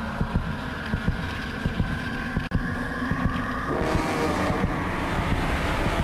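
Roller coaster running on its track, with steady whining tones over a rumble and wind buffeting the microphone; the sound shifts to a higher, rising whine and grows a little louder about four seconds in.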